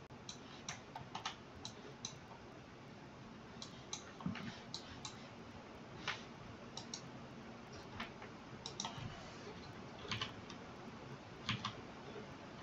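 Faint, irregular clicks of a computer mouse, some of them in quick pairs.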